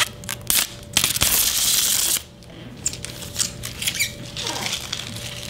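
Packaging being handled and rustling, with scattered light clicks and knocks and one loud rustle lasting about a second, about a second in.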